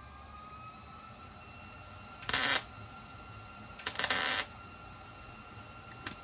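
MIG welder laying two short tack welds, each a burst of hiss under a second long, about two and a half and four seconds in; the second is the longer.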